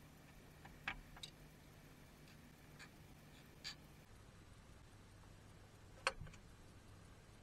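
Faint, sparse clicks and taps of a wooden bowl blank being handled and fitted onto a stopped lathe, with one sharper knock about six seconds in, over a quiet workshop hum.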